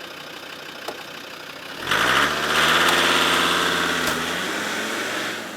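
Old Land Rover's engine revving up about two seconds in, then running steadily and easing off a little near the end.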